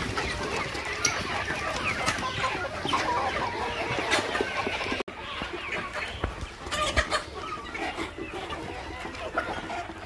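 A large flock of local desi chickens, hens and roosters, clucking and calling over one another without pause. The sound drops out for an instant about halfway through, and a few short knocks stand out just after.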